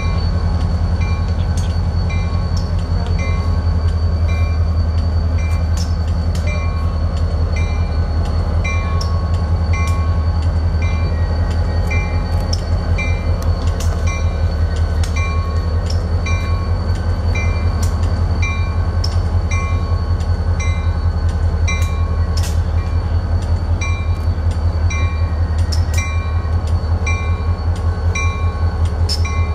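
Diesel locomotive's engine running at low throttle, a steady deep rumble as it creeps forward, with the locomotive bell ringing at an even pace of about one and a half strokes a second.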